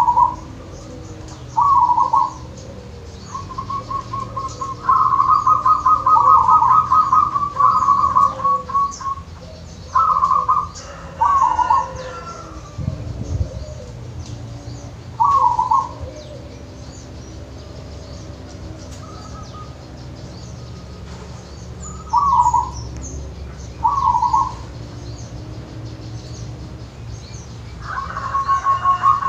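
Local zebra dove (perkutut) singing in short cooing phrases, with a long, rapidly pulsed trill of coos from about three to nine seconds in and another beginning near the end.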